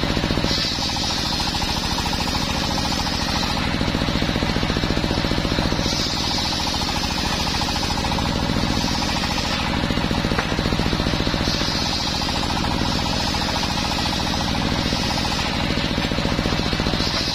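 Homemade bench circular saw ripping planks of waru wood, driven by an engine that runs steadily with a rapid, even beat. A higher cutting sound rises over the engine for three or four seconds at a time as each plank goes through the blade: three cuts, with a fourth starting near the end.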